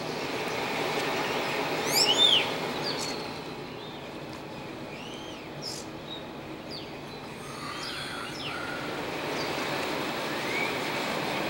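Birds calling: a scatter of short whistled calls that sweep upward or arch over, with the loudest cluster of rising calls about two seconds in. Under them runs a steady background rumble.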